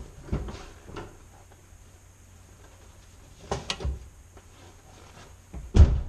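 Knocks and clunks from an Audi S4 B5 as its handbrake is released. A few come in the first second and a cluster about three and a half seconds in, with the loudest thump just before the end.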